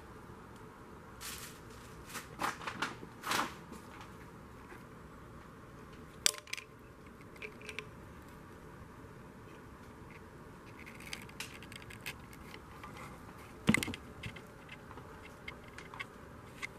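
Scattered clicks, knocks and rustles of handling over a low steady hiss, with the sharpest knocks about six seconds in and again near fourteen seconds in.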